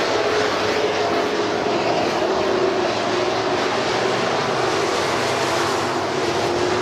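Dirt-track classic race cars' engines running hard around the oval, a loud, steady drone with an engine note that wavers slightly as the cars go through the turns.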